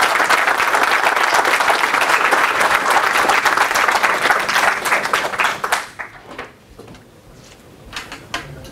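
Audience applauding, a dense run of many hands clapping that dies away about six seconds in, leaving a few last scattered claps.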